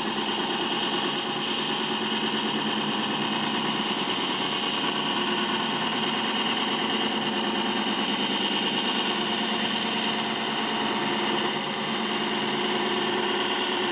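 Taig benchtop lathe running steadily while a carbide insert takes a light, hand-fed cut on aluminum with no cutting fluid.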